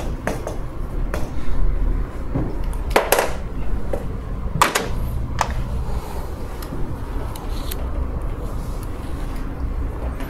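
Chalk writing on a chalkboard: a series of sharp taps and short scratchy strokes as characters are written, over a steady low room hum.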